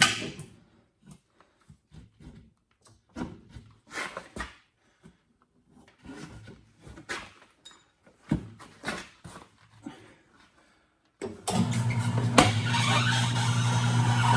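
Scattered knocks, clunks and scrapes as a tire is worked off its rim on a tire changer. About eleven seconds in, a machine motor starts and runs steadily with a low hum.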